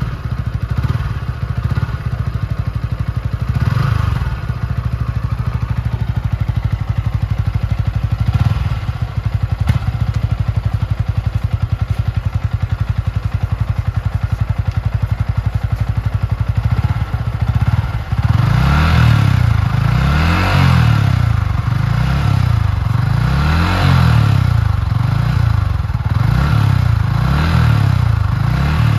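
Yamaha R15's single-cylinder engine idling, with a couple of short throttle blips. In the second half it is revved over and over, the pitch rising and falling every second or two.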